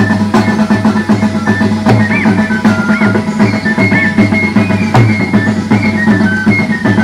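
Dance music for a traditional Amazonian carnival dance: drums keep a steady beat under a high melody line.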